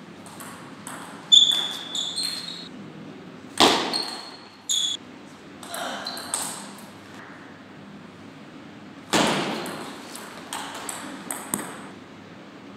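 Table tennis ball being struck back and forth: sharp clicks of bat and table hits, each with a short high ping, in groups of rapid strokes with the loudest hits about a third of the way in and again past the two-thirds mark. The hits echo in the sports hall.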